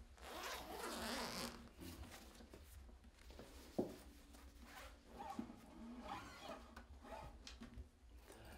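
The zipper of a padded guitar gig bag being pulled open, a rasping run in the first two seconds, followed by faint rustling of the quilted fabric as the bag is peeled off the guitar. A single sharp knock about four seconds in.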